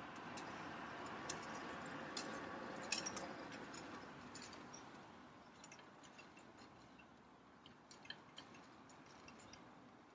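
Faint outdoor ambience: a soft, even noise that fades away over the first six seconds or so, with scattered small ticks and a few faint high chirps.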